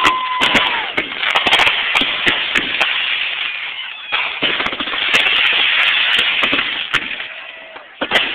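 Consumer fireworks going off: a steady high whistle in the first second, then dense, irregular crackling and popping. A fresh run of crackling starts as a ground fountain is lit near the end.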